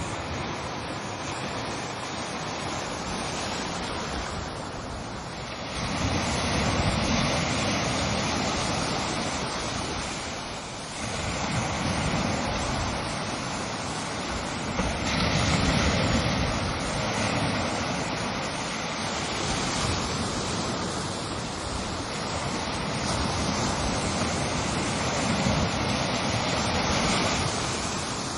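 Ocean waves breaking and washing on a shore, a continuous roar of surf that swells with each incoming wave, the biggest surges about 6, 11 and 15 seconds in.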